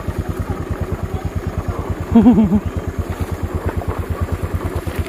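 Honda motorcycle engine running at a low, steady putter, about ten beats a second, as the bike rolls slowly downhill on dirt. A brief voiced sound comes about two seconds in.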